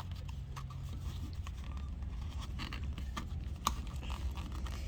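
Faint clicks and scraping of hands handling a small cosmetic package while trying to get it open, with one sharper click a little past halfway, over a steady low hum.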